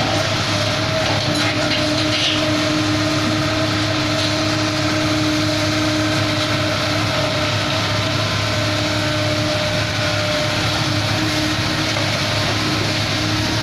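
Kobelco SK75 excavator's diesel engine running steadily at working revs as the machine digs and swings, a constant hum with an even tone over it.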